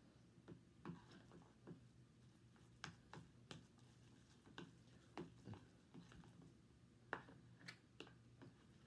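A fork clicking and scraping against a plastic container while stirring and twirling noodles in sauce: scattered light clicks, irregularly spaced, the sharpest about seven seconds in.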